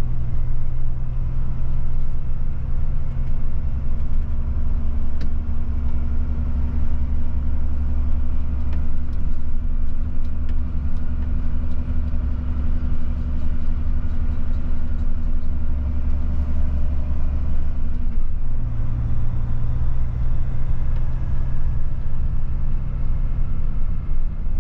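Volvo FH truck's diesel engine droning steadily, heard from inside the cab. The drone deepens a few seconds in and changes back about three-quarters of the way through, as the engine's speed or load changes.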